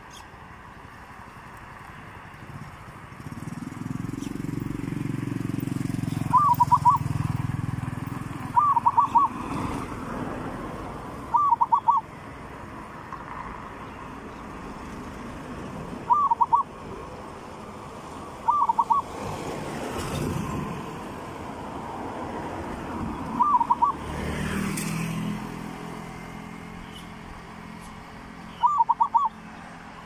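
Zebra dove cooing: seven short bursts of three or four quick notes, spaced a few seconds apart. A low vehicle-like rumble swells in the background a few seconds in and again near the end.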